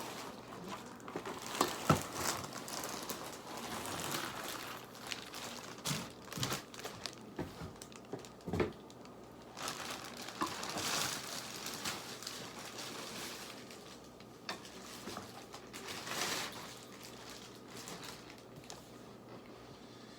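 Packaging being handled while a keyboard bench is unboxed: irregular crinkling and rustling, with scattered sharp knocks and clicks, the sharpest about two seconds in.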